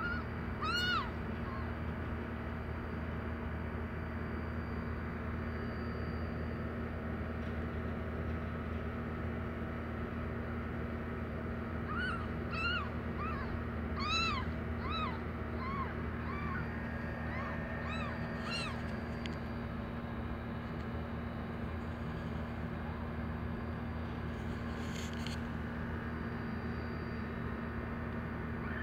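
Newborn kittens mewing: one short, high-pitched mew about a second in, then a run of about ten more short mews starting about twelve seconds in and lasting some seven seconds. A steady low hum runs underneath.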